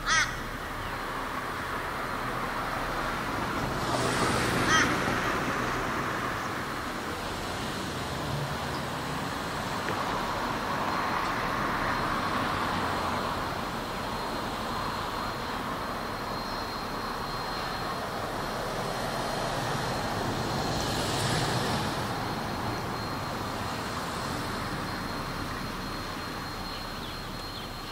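A rake of heritage railway carriages rolls slowly past, a steady rumbling hiss of wheels on track, with a thin high whine through the second half. A crow caws once at the very start.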